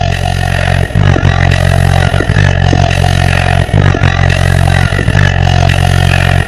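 Car-audio subwoofers (Skar Audio VD-12s) playing a bass-heavy track loud, heard inside the car's cabin. Deep bass notes are held for about a second and a half each, with a short break between them.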